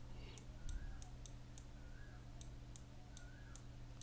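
Faint, sharp clicks, a few a second, made while writing by hand on the computer screen with a pen tool, over a low steady hum.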